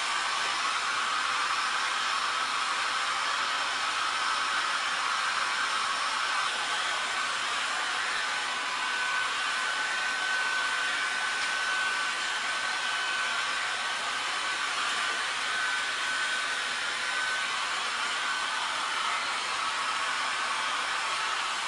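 Small handheld hair dryer blowing steadily, with a faint high whine in the middle stretch.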